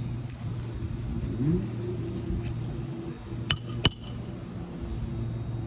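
Two sharp metallic clinks about half a second apart, a hammer striking a roofing nail and the metal repair tool while fastening a shingle. A steady engine hum runs underneath, rising briefly about a second and a half in.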